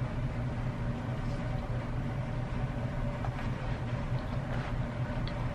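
Steady low hum with evenly stacked tones, with faint chewing of French fries and a light rustle from the paper fry carton over it.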